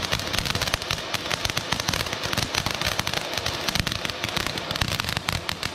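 Ground fountain firework spraying sparks: a steady hiss filled with rapid, dense crackling pops.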